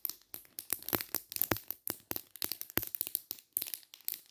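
Wacky Tracks snap-and-click fidget chain, its plastic links clicking as they are bent and turned: a quick, irregular run of sharp clicks, several a second.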